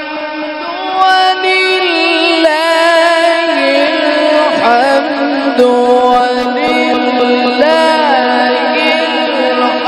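A man's voice in melodic Quran recitation (tilawat), amplified through a microphone, drawing out long held notes with quavering ornaments and gliding between pitches.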